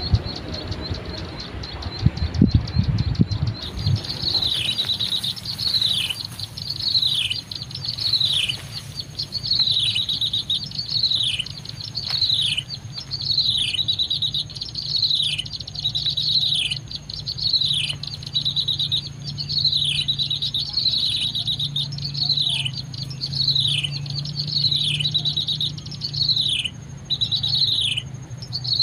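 A bird's short falling chirp, repeated at a very even pace about once a second, with a few low knocks in the first seconds.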